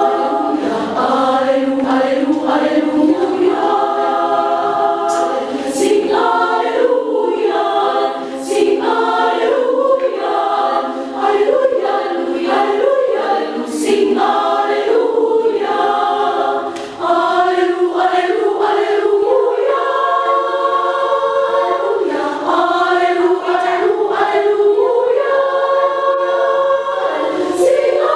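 Women's church choir singing a hymn unaccompanied, several voices together at once.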